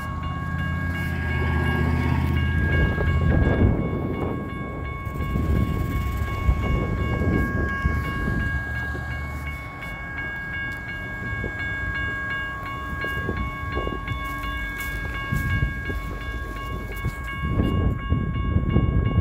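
Railroad crossing warning bell ringing steadily, its several tones unbroken: the crossing is stuck activated with no train coming, a malfunction. Under it, a road vehicle's engine runs with a low hum for about the first half, then stops suddenly.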